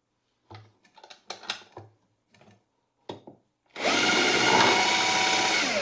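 A few clicks and knocks of handling, then a cordless drill running at steady speed for about two seconds, turning an RCBS TrimPro case trimmer through a power adapter to trim a brass cartridge case.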